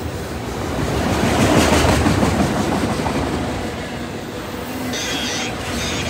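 CN freight train of autorack cars rolling past close by, its steel wheels rumbling and clicking over the rail joints, loudest about two seconds in.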